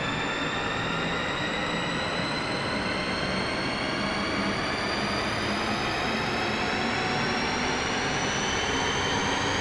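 Cinematic riser sound effect: a steady dense rushing noise with several high whining tones that climb slowly in pitch.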